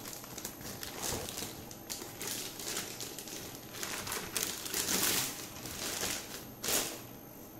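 Clear plastic packaging bag crinkling and rustling in uneven bursts as a boxed network appliance is slid out of it and the bag is pushed back into the box, with a sharper crackle near the end.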